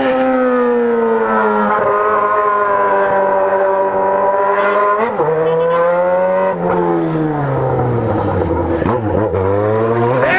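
Motorcycle engine running while riding in traffic. The revs ease slowly down, blip briefly about halfway through, sink lower, then climb again near the end.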